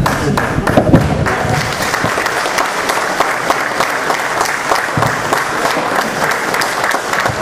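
Audience applauding: a steady round of clapping from many hands.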